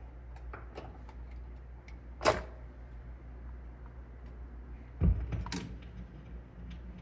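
Magnavox console stereo's automatic record changer cycling: light mechanical clicks, a sharp knock about two seconds in and a heavier low thump about five seconds in, over a steady electrical hum from the amplifier.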